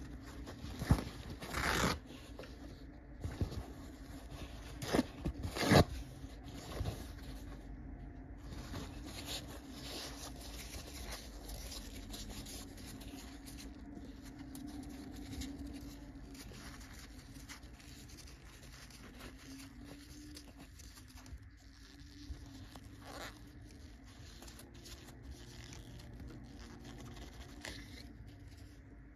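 Paper towel rustling and rubbing against a clear plastic fountain pen barrel and parts as they are wiped clean of ink. A few sharp taps and knocks come in the first seven seconds, the loudest about five to six seconds in.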